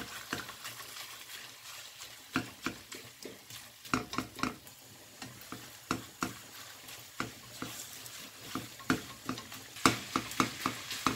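Silicone spatula breaking up and stirring raw ground beef in a frying pan, with irregular scrapes and taps against the pan over a faint sizzle of oil; the strokes come more often near the end.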